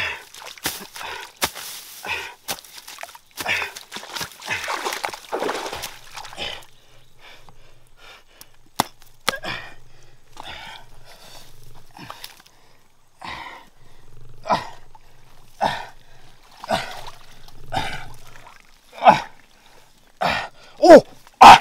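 A stick jabbing and scraping into a wet mud bank, a quick run of knocks for the first several seconds, then hands scraping through soil. Short voice-like calls come about a second apart, growing louder near the end.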